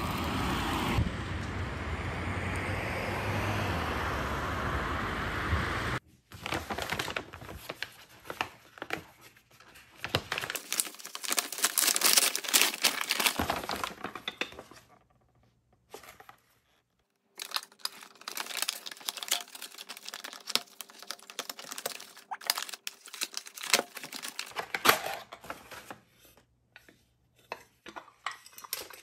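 A steady rushing noise cuts off abruptly about six seconds in. Then comes the crinkling and tearing of a brown paper mailer bag being opened and rummaged through, in bursts with a pause near the middle, as a cardboard box is pulled out of it.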